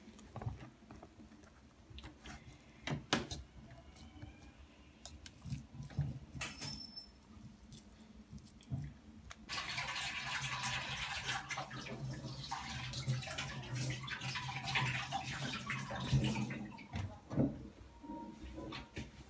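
Soft clicks and taps as meat-stuffed aubergine pieces are set into a metal baking tray. Then, about halfway through, water runs steadily for about seven seconds before stopping, with a few knocks near the end.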